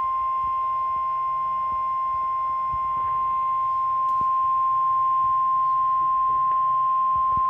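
NOAA Weather Radio warning alarm tone: one steady high beep near 1 kHz, held without a break over faint hiss, announcing that a weather warning is about to be read.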